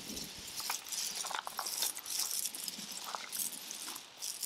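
Gravel stones scraping and clinking as they are pushed and screeded flat across a wooden frame with a spirit level; irregular scraping with scattered sharp clinks.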